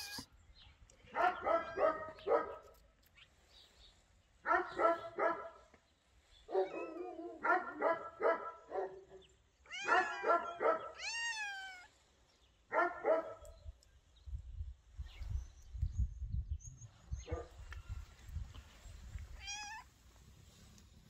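A dog barking in bursts of three or four short barks, five bursts over the first two-thirds; around the middle a higher call with a rising-and-falling pitch joins in, and a low rumble follows near the end.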